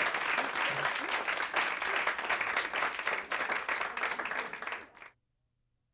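Studio audience applauding, many hands clapping together; the applause fades and cuts off near the end.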